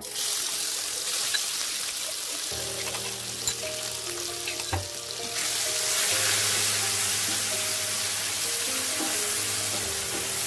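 Chopped onions dropped into hot oil in a frying pan with curry leaves, sizzling at once, and stirred with a wooden spatula. The sizzle turns louder about five seconds in.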